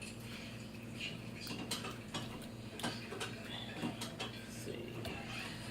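Irregular light clicks and knocks of kitchen utensils and dishes being handled while an avocado is prepared, over a steady low hum.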